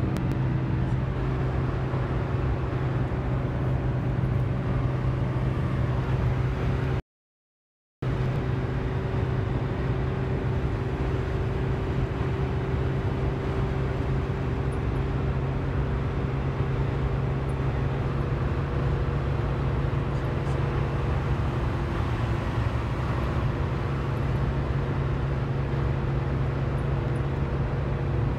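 Car driving at a steady pace: road and engine noise with a steady low hum. Around seven seconds in, the sound cuts out completely for about a second, then resumes unchanged.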